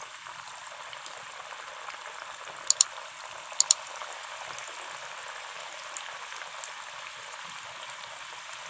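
Onion pakoras in gram-flour coating deep-frying in hot oil in a kadhai: a steady crackling sizzle as more handfuls of the onion mix are dropped in. Two sharp double clicks come about three seconds in.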